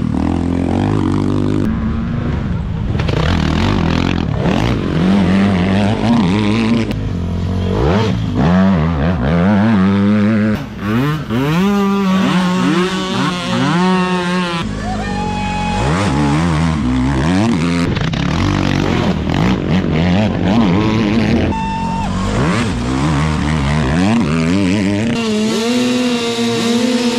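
Small youth quad bike engines revving hard through mud, their pitch rising and falling over and over as the riders accelerate and ease off. Near the end, several mini dirt bike engines run steadily at idle.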